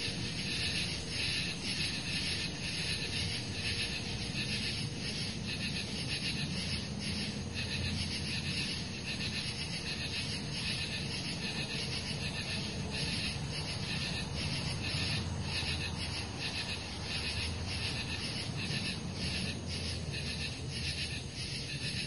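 Summer night insects calling in a steady rhythm of high-pitched pulses, over a low background rumble.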